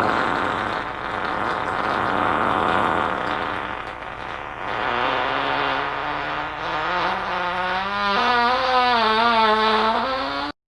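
One long, drawn-out fart, rough and noisy at first, turning into a pitched tone that wavers up and down in its second half, then cut off abruptly.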